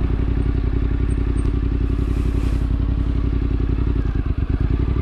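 Yamaha Ténéré 700's parallel-twin engine running at a steady, even speed, its firing pulses closely spaced, with no revving up or down.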